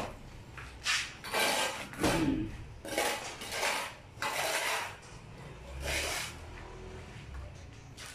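Mason's trowel scraping wet cement mortar on a concrete stair step: a series of rough scraping strokes about a second apart, thinning out after about six seconds.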